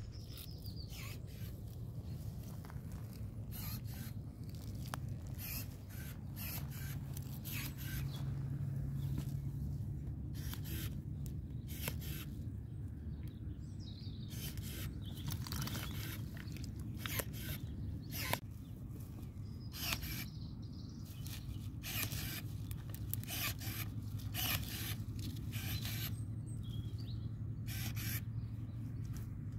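Hand pruning shears snipping and rustling through hazelnut sapling shoots, cutting away side shoots to leave a single trunk: irregular short clicks and rustles over a steady low hum.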